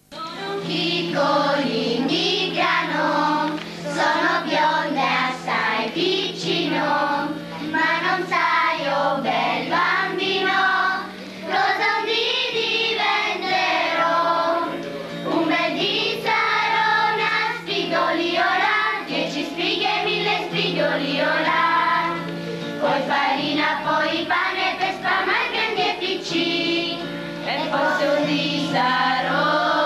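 A small children's choir of girls singing a hymn together, the melody moving continuously over a steady low held note.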